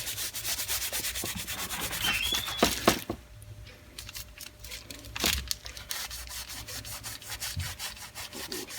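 Heavy-duty cleaning wipe scrubbed over the body of a vintage Thor electric drill: quick, repeated back-and-forth rubbing strokes, easing off briefly about three seconds in and then picking up again.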